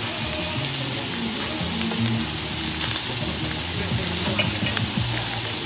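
Blackened shrimp frying in melting margarine in a ridged cast-iron grill pan: a steady sizzle with scattered small pops.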